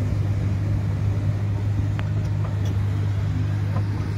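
Komatsu excavator's diesel engine running close by, a steady low hum.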